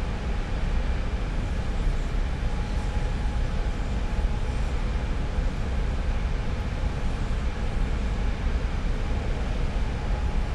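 Oil refinery plant heard close up: a steady, deep industrial rumble with a constant hiss over it and a few faint, unchanging hum tones.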